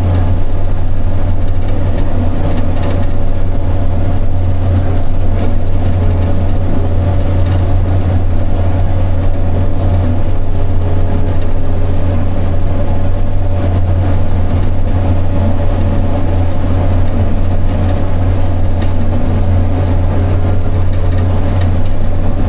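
Combine harvester running steadily while harvesting corn, heard from the operator's cab: a loud, even low engine hum with the machine's running noise over it.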